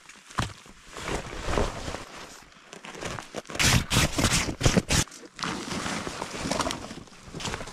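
Irregular crunching and rustling of a person moving about and handling gear in frozen snow, with a louder cluster of crunches in the middle.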